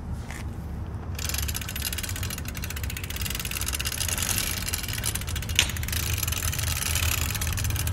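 Recorded bike sound effect playing back. A low rumble comes first, then from about a second in a louder steady rushing noise as the bike gets going, with one sharp click about two-thirds of the way through.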